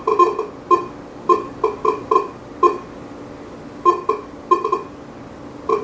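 Coinmaster GT metal detector with an NEL Tornado coil giving short, broken target beeps as a clad dime is held about 10 inches from the coil, near the edge of its detection range. About a dozen brief beeps come in irregular clusters, with a pause of about a second near the middle.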